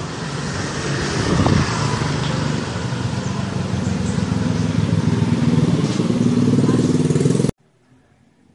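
A loud, steady engine running, a dense hum with hiss above it, which cuts off suddenly near the end.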